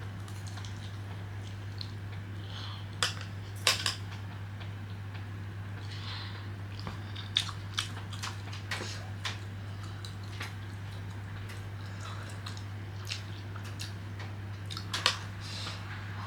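Eating with chopsticks: a few sharp clicks of chopsticks against a bowl or plate, spread out with pauses, with soft chewing, over a steady low hum.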